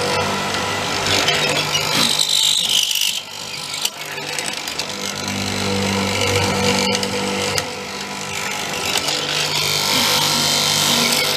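Multico K/3 hollow-chisel mortiser running, its square chisel and auger cutting into very hard wood over the steady hum of the motor, with two spells of harsher cutting noise, one about a second in and another near the end.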